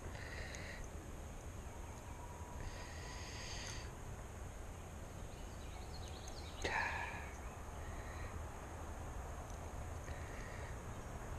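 Quiet outdoor background with a steady low rumble and a few short soft rustles. About two-thirds of the way in comes one brief, sharp sound, the loudest moment.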